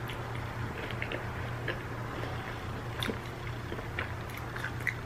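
Close-up chewing of a bite of a cheese-filled Cool Ranch Doritos Loaded snack dipped in ranch: scattered soft crunches and wet mouth clicks over a steady low hum.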